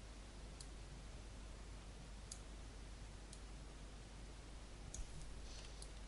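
Faint computer mouse button clicks, about six scattered sharp clicks, over a steady background hiss and low hum.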